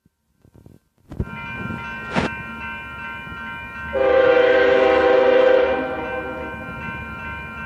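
Near silence for about a second, then a railroad crossing's warning bells ring steadily over the low rumble of an approaching freight train. About four seconds in, the lead Union Pacific locomotive, an EMD SD90/43MAC, blows its air horn in one loud blast of about two seconds.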